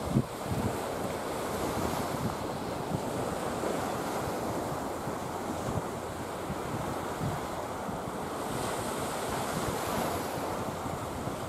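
Small waves washing onto a sandbank, with steady wind on the microphone and a few gusts buffeting it at the very start.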